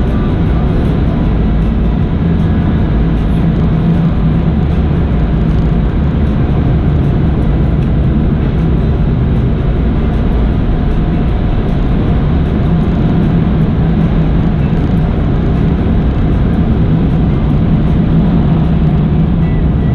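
Car wash tunnel's high-powered air dryers blowing on the car, a loud steady roar with a low hum, heard from inside the car's cabin.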